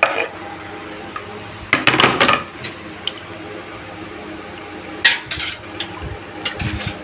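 Cut coffee jelly cubes being scraped off a wooden cutting board with a knife into a stainless steel pot of milky liquid. There are a few short scraping, splashing and clinking sounds, the loudest about two seconds in, with more near the end.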